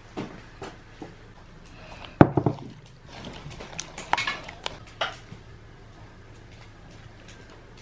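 Clatter of cooking utensils and dishes: scattered clinks and knocks, with the loudest cluster about two seconds in and a few more around four to five seconds in.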